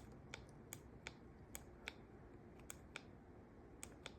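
Faint, sharp clicks, about a dozen at uneven spacing, from the buttons of a ceiling fan's remote control being pressed to change the light's color temperature.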